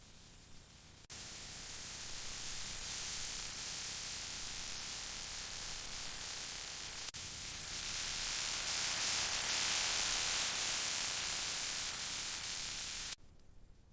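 Steak sizzling on a hot stone: a steady hiss that starts suddenly about a second in, breaks off for an instant about halfway through, and stops abruptly shortly before the end.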